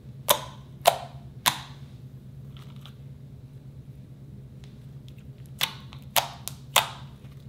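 Glossy slime popping as fingers poke and press into it, air pockets bursting with sharp, loud pops: three evenly spaced in the first second and a half, then four in quick succession near the end.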